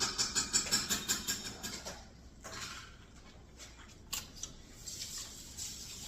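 Close, wet mouth sounds of someone chewing a fresh lemon wedge: quick smacking and squelching clicks, several a second, for about two seconds, then fewer, softer ones.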